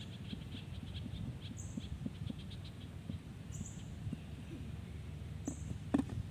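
Calling animals outdoors: rapid trains of high chirps and a short, high buzzy note that repeats about every two seconds, over a low crackling rustle. A sharp knock sounds near the end.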